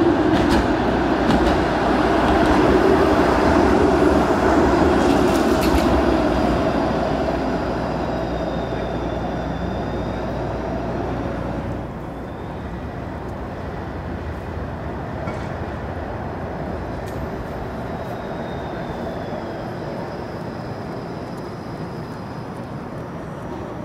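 Bombardier Flexity streetcar rolling along street-running rails: a steady, loud rumble with a few sharp clicks from the wheels on the track. About halfway through it drops to a softer steady hum of city traffic as another streetcar approaches from a distance.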